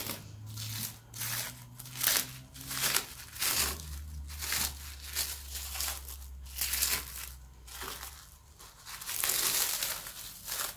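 Plastic cling film crinkling and rustling in irregular bursts as it is peeled back and unwrapped from a frozen cake in a metal loaf tin.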